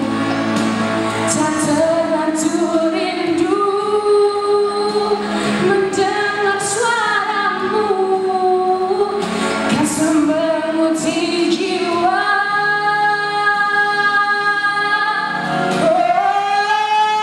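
A girl singing a Malay song solo, drawing out long sung notes. From about twelve seconds in she holds one long steady note, then slides up to a higher held note near the end.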